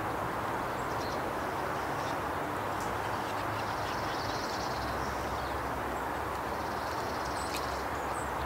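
Steady rushing outdoor background noise, with faint high bird chirps and twitters here and there.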